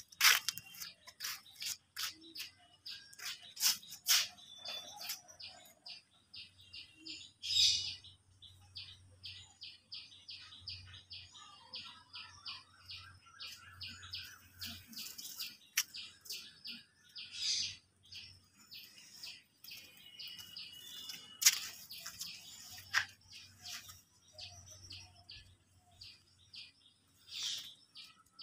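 Small birds chirping: a steady run of short, high chirps at about five a second, with a few sharp clicks or rustles scattered through.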